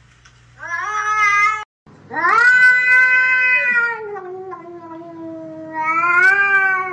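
A cat meowing: a short meow that cuts off abruptly, then one long drawn-out yowl of about five seconds that swells again near the end.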